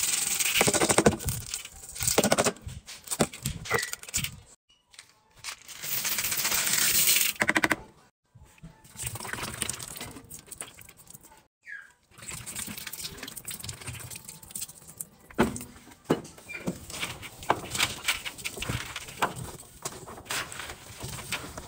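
Laundry detergent powder and scent beads poured into the stainless-steel drum of a top-loading washer, a grainy hiss in a few short takes. After that, a hand presses and squishes the powder pile with many small crunching crackles.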